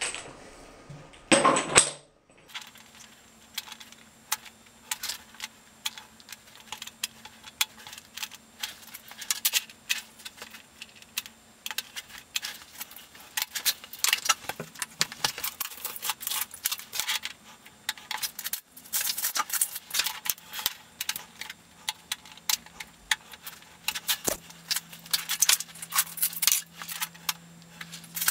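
Mosaic tiles clicking and clinking against one another, in irregular runs of small sharp taps, as the tile sheets are set and nudged into place by hand.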